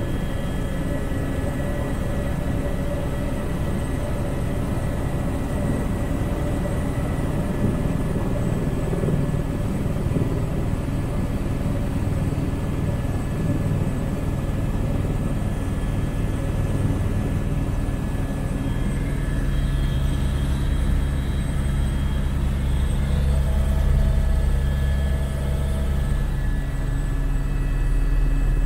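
Steady drone of a small aircraft's engine and airflow, heard from inside the cockpit: a deep rumble with a few faint high steady tones over it, growing slightly louder near the end.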